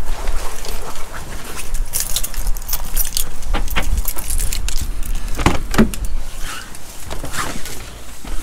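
Footsteps with clicks, knocks and a jingling rattle as a motorhome's side door is opened and stepped through, over a steady low rumble.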